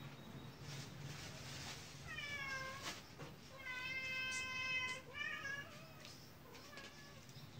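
A cat meowing three times: a falling meow about two seconds in, a long steady meow around the middle, and a short wavering one right after it.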